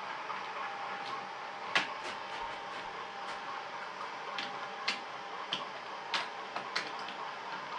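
OO gauge model freight wagons rolling past on the track, their wheels giving irregular sharp clicks, about eight of them, over a steady hum.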